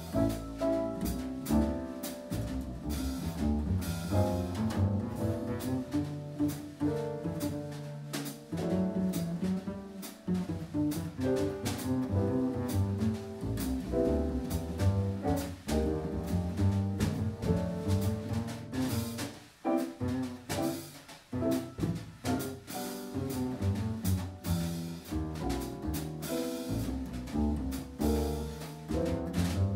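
Upright double bass playing a plucked jazz line, with a drum kit keeping light time on cymbals behind it.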